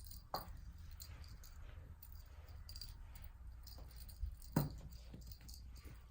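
A RagaMuffin kitten playing on a rug: faint scrabbling and small taps, with two soft thumps, one just after the start and one about four and a half seconds in.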